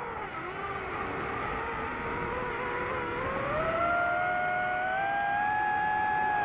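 DJI FPV drone's motors and propellers whining steadily. The pitch dips slightly, then rises smoothly about three seconds in and holds higher as the drone climbs.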